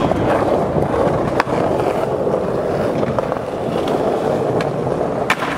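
Skateboard wheels rolling steadily over concrete paving, with a few sharp clicks; the clearest click comes near the end.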